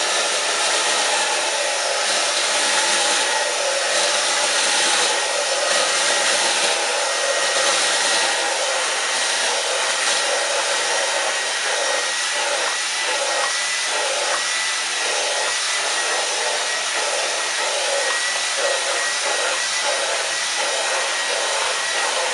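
Dyson V10 Animal cordless stick vacuum running on Max mode, a loud steady rushing whoosh of its motor and airflow, with a thin whine that wavers slightly in pitch in the second half.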